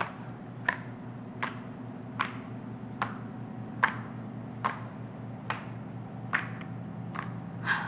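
Homemade slime being squeezed and kneaded in the hands, giving sharp clicks and pops as trapped air bursts, about one click a second.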